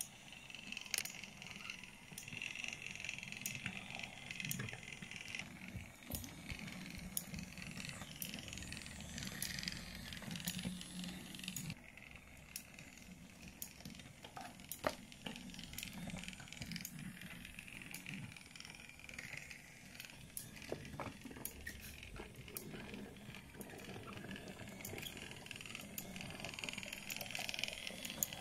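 Battery-powered Brio wooden toy train running along wooden track. The small electric motor whirs steadily while the wheels rumble and click over the track joints. The whir eases off about halfway through and comes back near the end.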